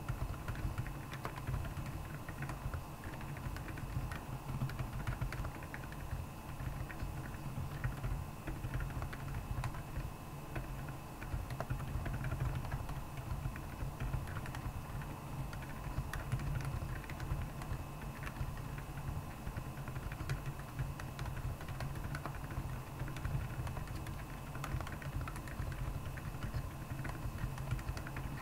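Continuous typing on a Royal Kludge R75 mechanical keyboard with Akko Penguin silent tactile switches: a steady stream of keystrokes, several a second.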